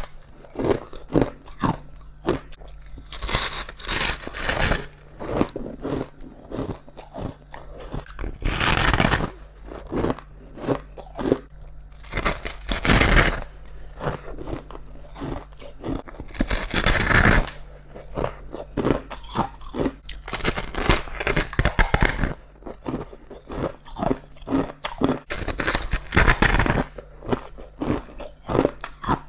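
A person biting into chunks of humidifier top ice and chewing them. Loud crunches come every few seconds, with crackly chewing between.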